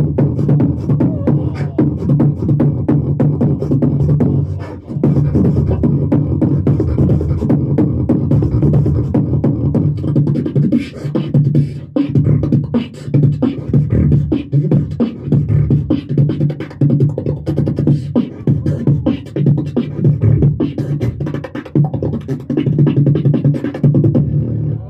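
Solo beatboxing into a handheld microphone over a PA: a continuous low droning bass line under fast, dense percussive clicks and snares, breaking off briefly about five seconds in.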